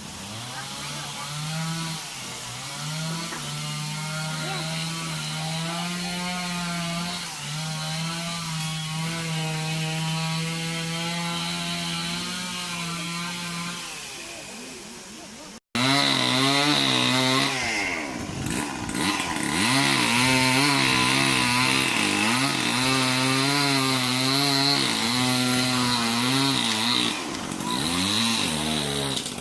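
Chainsaw running at high revs while cutting wood, its engine note dipping and recovering as it bites under load. It breaks off sharply about 16 seconds in and starts again louder.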